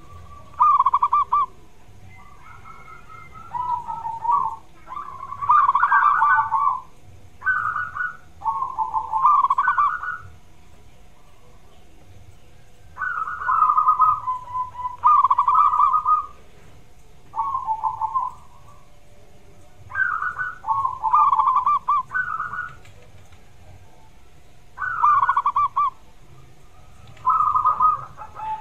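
Zebra dove (perkutut) cooing: repeated rolling, trilled coo phrases coming in bouts, with a pause of a few seconds about a third of the way through.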